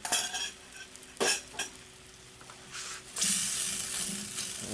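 Wooden spatula knocking a few times against a cast iron skillet of shrimp and spinach in bubbling Alfredo sauce. The sauce sizzles, and from about three seconds in a steady, louder sizzle sets in as it is stirred.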